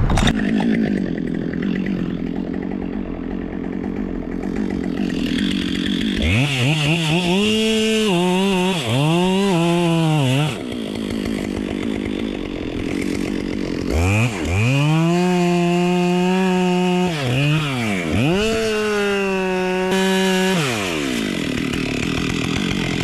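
Two-stroke chainsaw cutting a dead oak: after a few seconds of low running it revs in three short bursts, then holds at full throttle through two longer cuts with a brief dip between, and drops back near the end.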